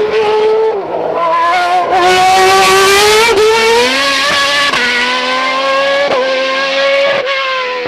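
Formula 1 car's V8 engine at high revs, its pitch climbing steadily and dropping sharply at each upshift, about six gear changes.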